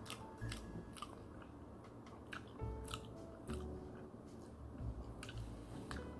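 A person chewing and biting food close to the microphone, with irregular crisp, crunchy clicks.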